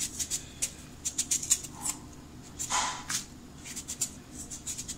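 Blade scraping the skin off a boniato (Cuban sweet potato) in short, uneven strokes, with one fuller, louder scrape about three seconds in.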